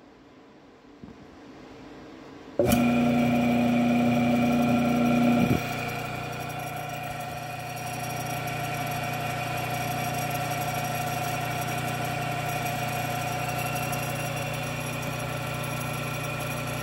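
Single-phase induction motor with a centrifugal start switch being switched on: about two and a half seconds in it starts with a loud hum. About three seconds later a click cuts the hum off as the centrifugal switch opens and drops out the start winding, and the motor runs on steadily and more quietly.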